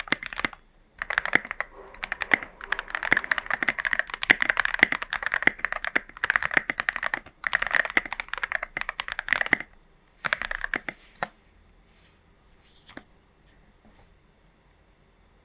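Typing on a Glorious GMMK Pro mechanical keyboard with stock strawberry switches, SA profile keycaps, a tape mod and the case foam removed: fast runs of key clacks with short pauses. The typing stops about eleven seconds in, with a few faint key taps after.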